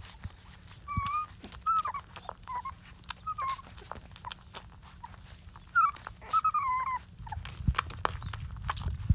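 Young Rottweiler puppies squeaking and whimpering while nursing: short, high, wavering cries in small clusters, with scattered small clicks and a low rumble of movement near the end.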